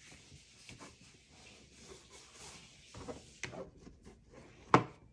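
Paper and cardstock rustling as they are handled and folded, with a few light taps about three seconds in and a sharper knock just before the end.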